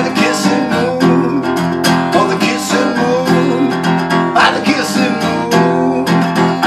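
Yamaha acoustic guitar strummed in a steady rhythm, chords ringing, with a man's voice singing over it in places.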